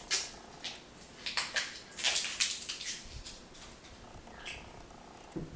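A quick series of sharp clicks and crackles as hands handle and work open a small plastic item, with a faint, intermittent purr-like hum underneath.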